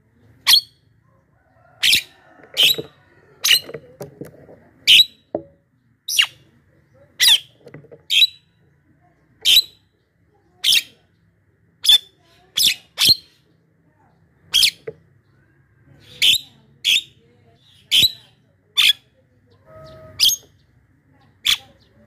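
Javan myna (jalak kebo) calling in full voice: short, sharp, high calls repeated about once a second at uneven intervals.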